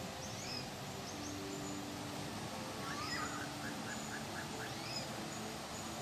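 Small birds chirping and whistling over the steady rush of a mountain stream, with a quick trill of about seven repeated notes about three seconds in.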